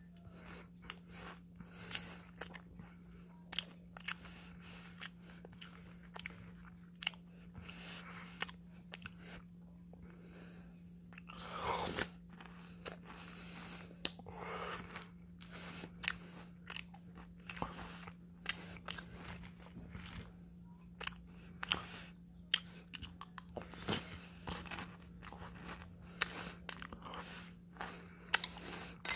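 A person chewing and crunching spoonfuls of peach mango Cheerios in milk, with irregular crunches and mouth clicks throughout. A steady low hum runs underneath.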